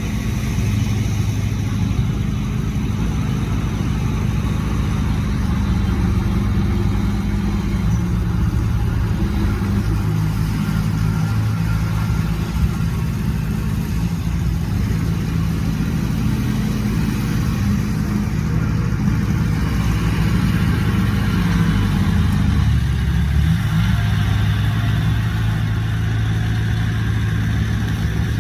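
Heavy diesel engine of earthmoving machinery running steadily under load, with a shift in engine speed a little over twenty seconds in.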